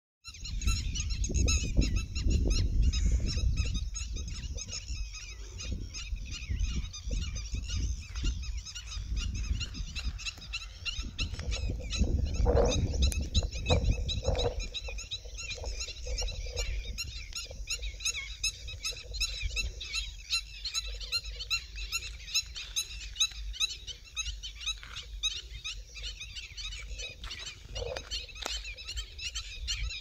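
A dense chorus of many birds chirping at a lake, steady throughout, with a few louder, lower honking calls about twelve and fourteen seconds in and again near the end.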